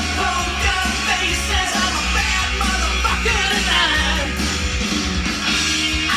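Rock song with a singer and a band, played from a vinyl record on a turntable.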